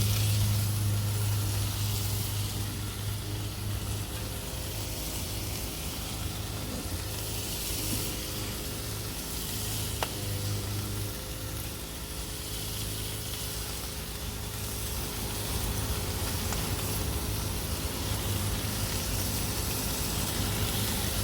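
Peppers and onions sizzling steadily in olive oil on a hot barbecue. A steady low engine hum runs underneath, from a lawn mower running nearby.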